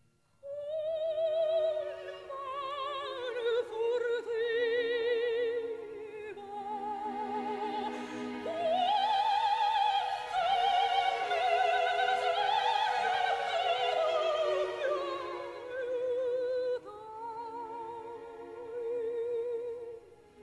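Operatic singing: a trained voice with wide vibrato holding long notes. It starts suddenly about half a second in and climbs to its highest, loudest notes in the middle.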